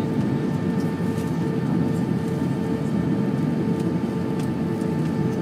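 Steady airliner cabin noise on the landing approach: a constant rush of air and engine hum with a steady whine, heard inside the cabin over the wing with the flaps extended.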